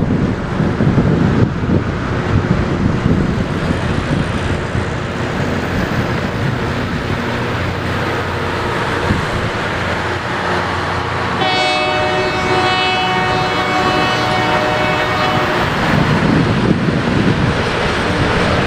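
Loram RG319 rail grinder train passing, a steady rumble of engines and wheels on the rails, with one long horn blast of about four seconds a little past the middle.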